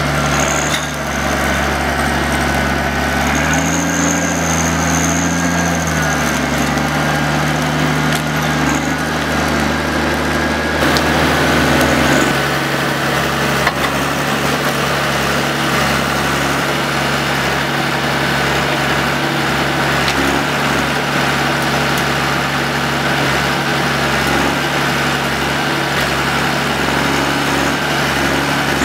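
Diesel engine of a John Deere 1110D forwarder running steadily, its note rising briefly about four seconds in and shifting again near twelve seconds, with a high whine coming and going in the first few seconds.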